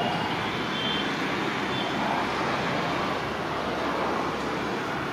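Steady rumble of a diesel locomotive and its train approaching from a distance, mixed with road traffic noise.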